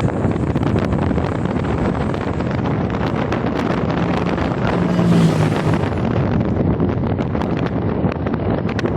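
Heavy wind buffeting the microphone of a moving rider, over steady rumbling noise, with a brief low hum about four to five seconds in.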